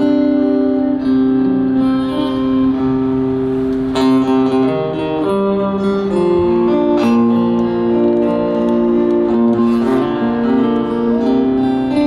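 Solo acoustic guitar playing slow, ringing chords live, amplified through a concert PA and heard from the crowd. The chords change every second or two, with a sharply struck chord about four seconds in and another near seven seconds.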